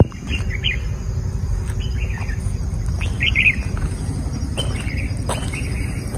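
Small birds chirping in several short bursts, a few quick high notes each time, over a steady low rumble.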